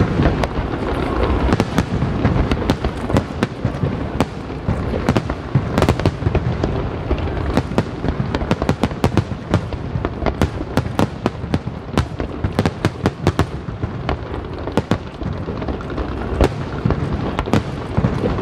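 Fireworks display: a dense run of sharp crackling pops in quick, irregular succession over a low rumble of bursts.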